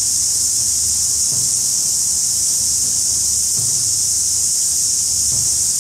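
Steady, high-pitched insect chorus that goes on without a break.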